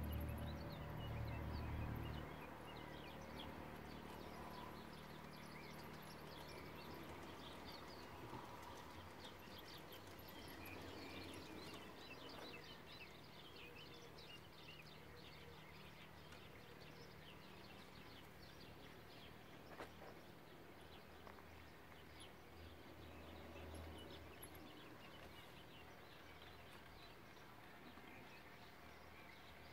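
Faint sound of garden-scale model trains running on an outdoor layout: a low rumble that drops away after about two seconds, then a light, quick ticking like wheels clicking over rail joints, under quiet outdoor air.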